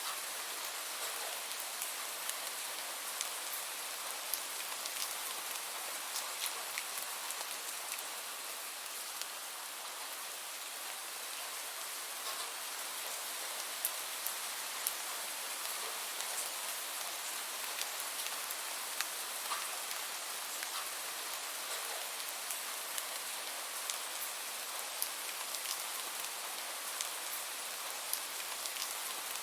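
Steady rainfall: an even hiss of rain with scattered, sharper individual drops ticking on a surface.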